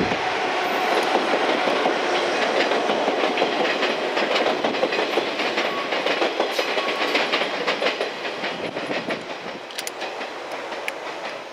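Yellow JR West electric multiple unit, Okayama depot set A10, running past on the rails. Its wheels clatter over the rail joints, and the sound fades steadily as the train moves away.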